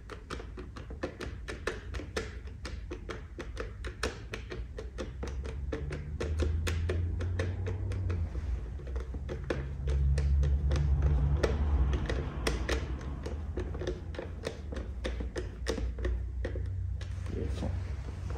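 Hand Torx driver ratcheting as T20 Torx bolts are tightened into the motorcycle's race screen and fairing panel: quick irregular clicks, several a second. A low rumble swells about six seconds in and again around ten seconds.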